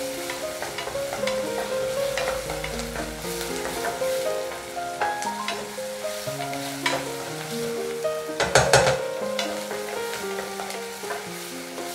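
Chopped onion, garlic and ginger sizzling in ghee in a stainless steel pressure cooker, stirred with a wooden spatula that scrapes and knocks against the pot. A burst of louder scraping comes about three-quarters of the way in.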